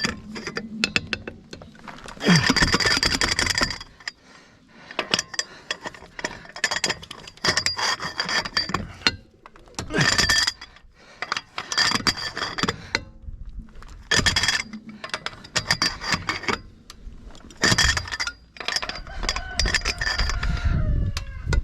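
Air or electric impact wrench driving lug nuts tight in several short bursts of rapid hammering with a high whine. Metal clinks from the wheel and tools come between the bursts.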